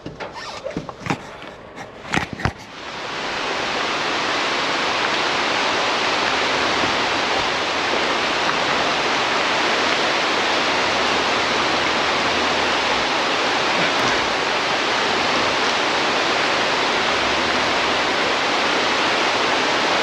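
A few knocks, then from about three seconds in a steady, even rushing of water.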